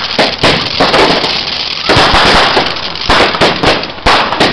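Fireworks going off in quick succession: sharp bangs, two or three a second, over a continuous hiss.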